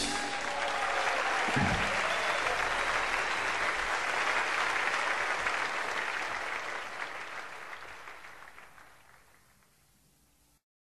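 Audience applause right after the song's final chord, steady for several seconds and then fading out, with a brief low thump about two seconds in.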